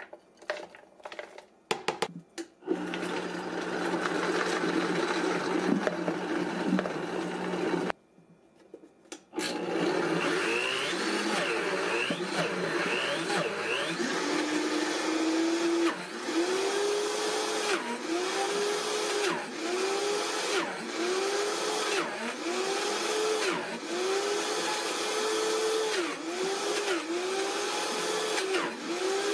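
A few clunks of handling, then a Vitamix 5200 blender motor running on almonds. It stops about 8 s in, starts again, and in the second half its pitch dips and recovers about once a second as the thick almond butter loads the blades.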